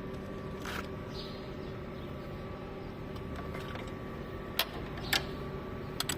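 A steady background hum with a few faint steady tones in it. Four short, sharp clicks sound about a second in, twice near the middle and once near the end.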